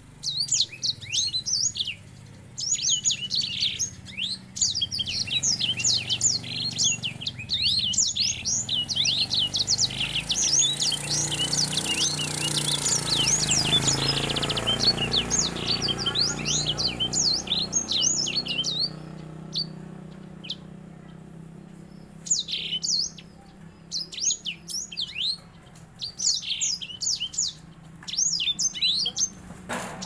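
Grey singing finch (edel sanger) singing a long, rolling run of fast, high twittering chirps and trills, the song of a bird in breeding condition. The song breaks off for a few seconds about two-thirds of the way through and then comes back in shorter bursts. A soft rushing noise swells and fades in the middle, over a steady low hum.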